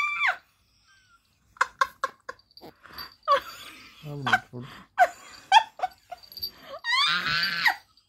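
Persian kitten mewing while playing, a run of short high cries with one longer cry near the end.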